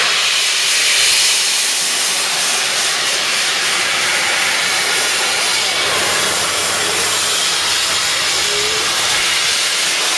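Peppercorn A1 steam locomotive 60163 Tornado letting off steam: a loud, steady hiss.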